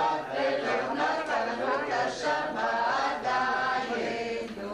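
A group of voices singing a Passover Seder song together in Hebrew, unaccompanied.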